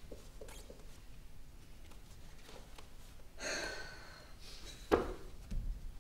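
A quiet pause in a stage play: a brief soft noise about three and a half seconds in, then a single sharp knock about five seconds in, followed by a few low bumps, from the actors moving about on stage.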